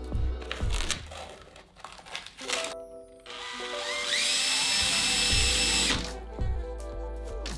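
Makita cordless drill spinning up with a rising whine about three and a half seconds in, running steadily for about two seconds, then stopping. Background music plays throughout.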